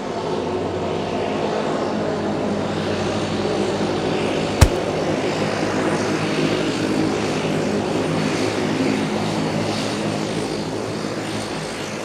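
Propeller airplane flying, a steady engine drone that fades out near the end. One sharp click cuts across it about four and a half seconds in.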